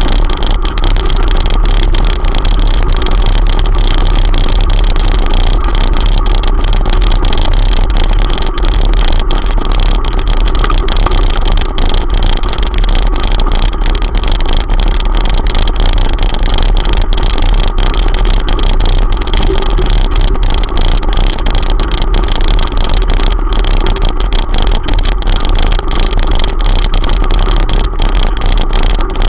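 Wind buffeting and vibration on a handlebar-mounted camera riding over a gravel track: a loud, steady rumble with constant fine rattling from the stones and the mount.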